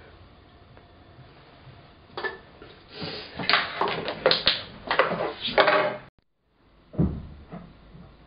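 Empty aluminium Coca-Cola can being crushed by hand against a wooden tabletop: a run of sharp, irregular metallic crackles and crunches as the walls buckle. Near the end comes a single thump.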